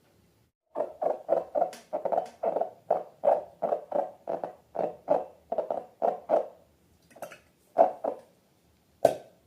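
Slime being squished and pressed by hand: a rapid series of short, wet squelches at about three a second, then three more spaced out near the end.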